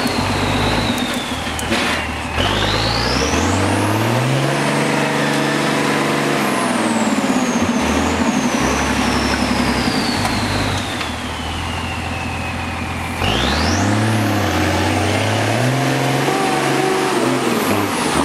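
M35A2 deuce-and-a-half's turbocharged multifuel inline-six working hard through mud, its revs climbing and falling with the throttle. The revs drop off briefly about two seconds in and again near thirteen seconds, then pick back up. A high turbo whistle slides slowly down as the revs fall and sweeps back up each time the throttle comes on again.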